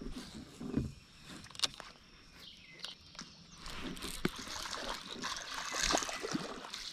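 A fishing reel being cranked in with scattered clicks as a hooked bass is brought to the kayak, the fish splashing at the surface about six seconds in.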